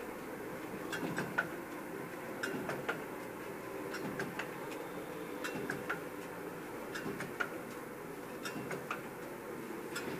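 Bossar B1000 horizontal sachet-packaging machine with auger filler running, a steady mechanical hum with sharp clicks repeating at a regular rhythm, often in pairs about every second and a half, as it fills and cuts powder sachets.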